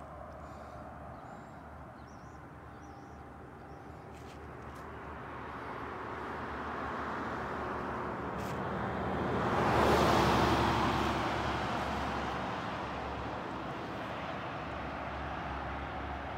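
A road vehicle passing by: tyre and engine noise builds gradually, peaks about ten seconds in, then fades away.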